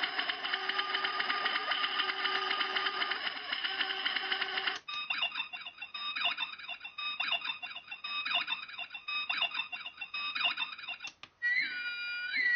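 1/6-scale QMX Star Trek: TOS Captain's Chair replica playing its built-in bridge sound effects through its small speaker. A dense electronic beeping and chirping switches to a sparser run of beeps about five seconds in, and a short rising-and-falling tone sounds near the end.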